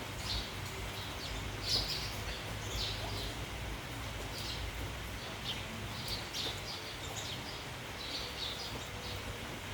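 A flock of sparrows chirping in quick, scattered high notes. Underneath runs a steady low rumble of wind.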